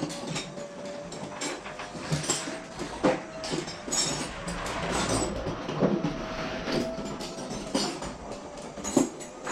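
Metal clanking and knocking at irregular intervals, with a stretch of scraping and rattling in the middle, as rusty metal parts and tools are handled.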